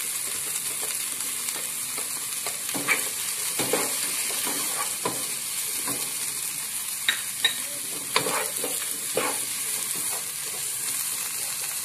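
Wooden spatula stirring diced potatoes, onion and powdered spices in a non-stick pot, with irregular scrapes and knocks against the pot over a steady sizzle of the filling frying.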